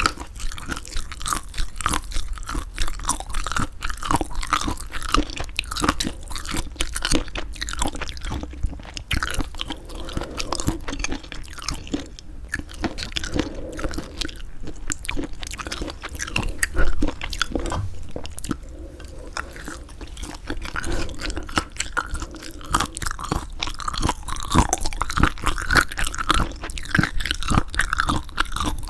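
Close-miked chewing of semi-dried squid: continuous wet, sticky clicks and crunches of the chewy flesh being worked between the teeth, with one louder knock about seventeen seconds in.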